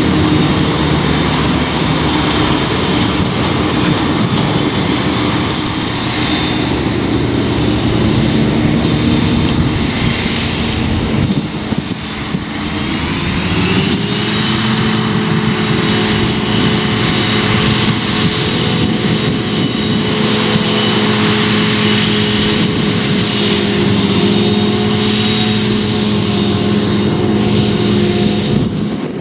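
Farm machinery working steadily: a JCB 4220 tractor's engine as it pulls a silage trailer past, then a Claas Jaguar 970 forage harvester running as it chops rye and blows it into the trailer. About halfway through, the engine tone steps up in pitch and holds there.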